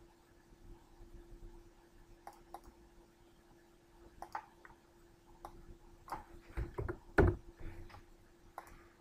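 Scattered faint computer mouse clicks and small knocks over a low steady hum, with a cluster of louder dull thumps around seven seconds in.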